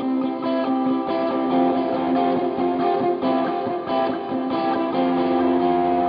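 Electric guitar, a Strat copy, played through a Hotone Nano Legacy Siva Boogie mini amp head with a Zoom G1Four multi-effects unit in its send/return loop, heard straight from the line out. Chords and notes ring on with a new one struck every half second to a second, and the tone is dull and rolled-off in the treble.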